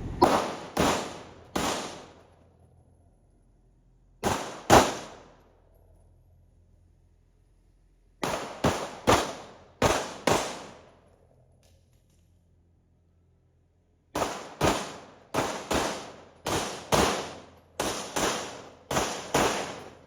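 Pistol gunfire on a competition stage: about twenty shots, mostly fired in quick pairs about half a second apart. They come in three strings, a short one at the start, a string of six in the middle and a longer run of about eleven near the end, with pauses of a few seconds between them.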